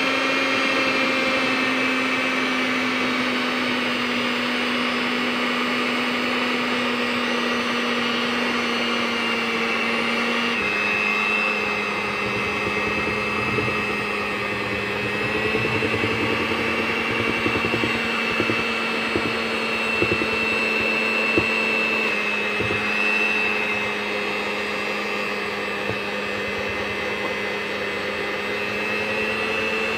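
Electric hand mixer running steadily, its twin beaters whisking cake batter in a bowl. The motor's hum steps down a little in pitch about ten seconds in.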